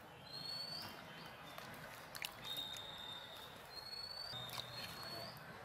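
Light knocks and soft splashes as chunks of cut squash are set into water in a clay bowl. Over them a bird gives thin, high whistled calls: held notes repeated several times, some ending in a short upward slide.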